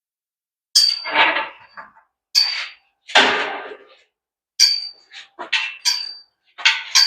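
Steel jack stand being handled and set in place: a series of sharp metal clanks, several of them ringing briefly.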